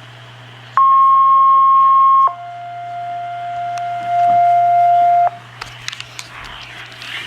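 Radio alert tones over receiver hiss: a loud steady high tone for about a second and a half, then straight into a lower tone for about three seconds, a two-tone sequential alert that comes ahead of a weather alert announcement. Scattered radio clicks and crackle follow near the end.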